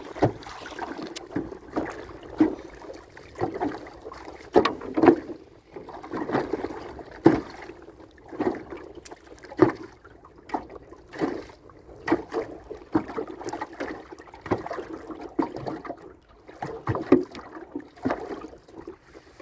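Irregular knocks and bumps in a small boat on the water, about one or two a second, with faint water sounds between them.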